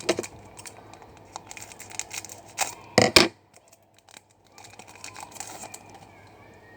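Foil wrapper of a trading card pack being torn open and crinkled: a series of short rips and crackles, the loudest about three seconds in, then quieter rustling.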